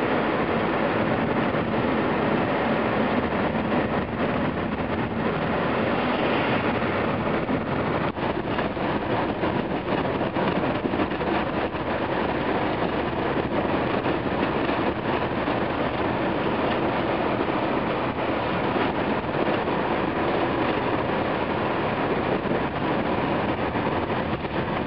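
Steady engine and tyre noise heard from inside a moving car.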